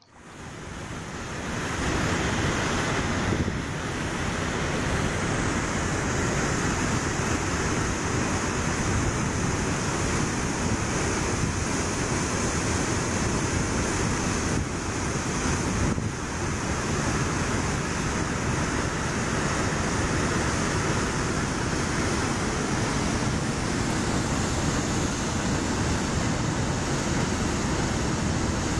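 Water rushing out of the open gates of a dam spillway: a loud, steady roar that swells up over the first second or two.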